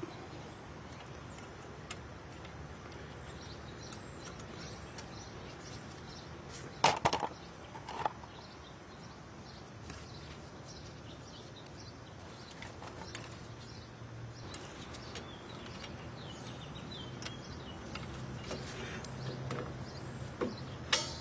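A few sharp metallic clicks over a faint steady background, the loudest about seven seconds in and another a second later, as the adjuster spring of a drum brake is worked into place behind the hub by gloved hands and a screwdriver. A faint low hum joins in the second half.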